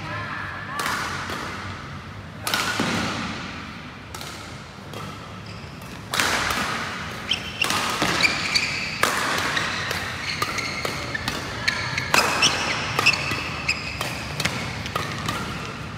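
Badminton doubles rally: rackets striking the shuttlecock in quick succession, with shoes squeaking and scuffing on the court floor. The rally picks up about six seconds in.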